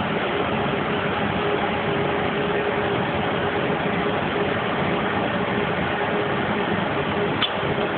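Steady machine hum and hiss, with a constant tone running through it and a faint click near the end.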